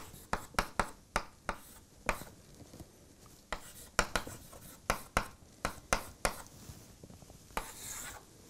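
Chalk writing on a blackboard: a quick, irregular string of sharp taps as characters are written, with a longer scrape near the end.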